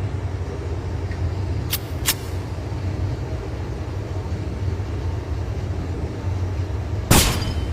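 A steady low rumble with two faint clicks about two seconds in, then a single loud pistol shot near the end.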